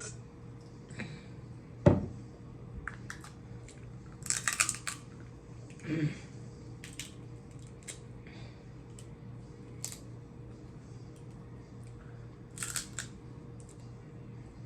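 Scattered sharp clicks and crackles of snow crab leg shells being snapped and picked apart while eating, with one louder thump about two seconds in.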